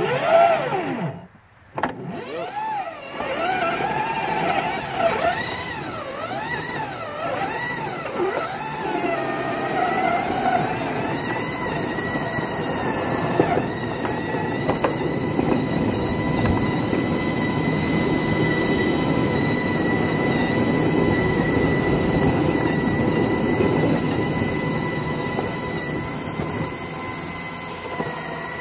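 Small motorized rail vehicle pushing a homemade snowplow through wet snow along the track. Its motor's pitch rises and falls several times over the first ten seconds or so, then settles into a steady high whine over a constant rushing noise.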